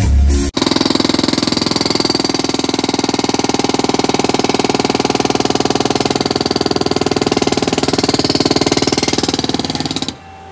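Hydraulic breaker on a Bobcat skid-steer loader hammering concrete: a rapid, steady stream of blows over the loader's engine, stopping near the end.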